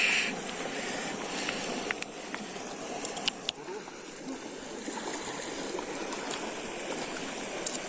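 River water running steadily, an even rushing noise, with a short louder hiss right at the start and a few faint clicks.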